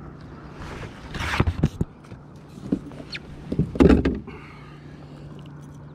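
Knocks and rustling as a freshly caught bass is handled in a landing net against a plastic kayak, in two short bouts, the second louder.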